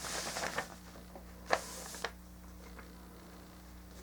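Light handling noise from plastic model-kit parts: a brief rustle, then a couple of small clicks, one about a second and a half in and a fainter one near two seconds, over a low steady hum.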